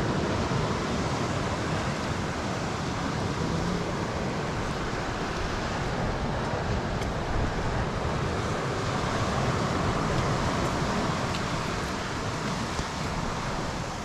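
Surf breaking and washing over a rocky shore, a steady rushing, with wind rumbling on the microphone.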